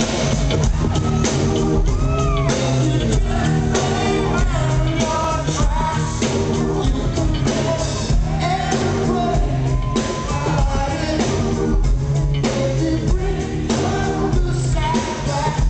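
Live band music with a male lead singer singing into a microphone over a steady beat, recorded from within the concert crowd.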